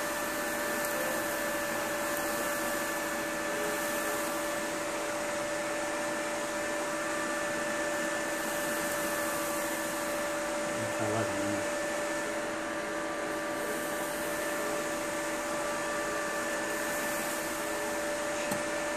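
Steady whir with a constant hum from the cooling fans of an open overclocking rig, while liquid nitrogen is poured into the graphics card's cooling pot and boils off. A brief low knock about 11 seconds in.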